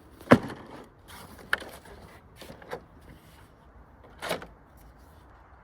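A few separate sharp clicks and clacks, the loudest about a third of a second in and another near the end, from a toy electric gel-bead blaster (M4-style, XS-1808).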